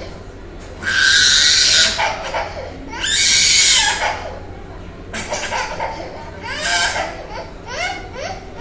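Toddler screaming and crying as her ear is pierced: two long, loud wails, then shorter broken sobbing cries.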